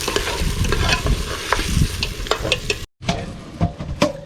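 Curry goat frying and sizzling in a pot, with scattered sharp clicks and knocks. The sound cuts out briefly about three seconds in and comes back quieter.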